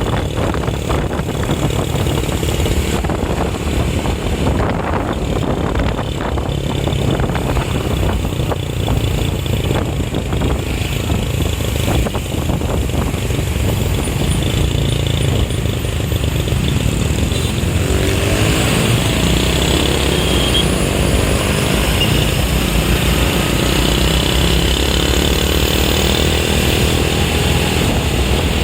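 Vehicle engine and road noise heard while moving in traffic, with a steady low rumble throughout. About two-thirds of the way in, an engine climbs steadily in pitch as it speeds up.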